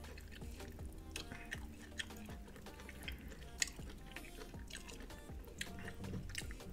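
A piece of corn on the cob is dipped and swirled by hand in a glass bowl of melted butter sauce: faint dripping and small sharp clicks, the loudest about two seconds and three and a half seconds in, over quiet background music.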